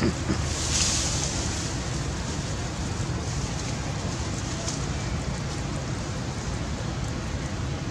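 Steady outdoor background noise: a low rumble with a hiss over it, the hiss briefly louder about a second in.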